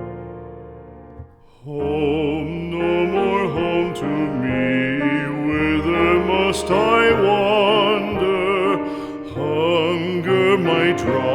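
Background music. A piano chord fades out, then about two seconds in a slow, soft piece begins, with sustained chords under a high, wavering melody.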